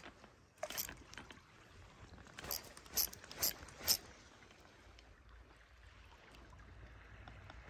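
Water lapping over a low wind rumble, with a few sharp clicks or taps: one at the start, a pair just before a second in, and four in quick succession around the middle.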